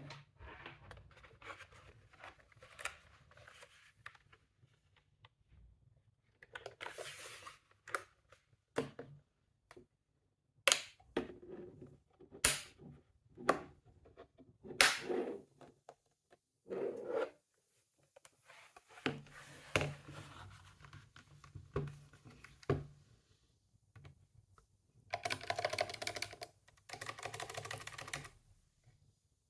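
Typing on a stock Perixx Periboard 335 mechanical keyboard with Kailh Choc Brown low-profile tactile switches, in uneven clusters of key clicks with pauses between them. A few single keys are struck sharply partway through, and a run of fast, continuous typing comes near the end.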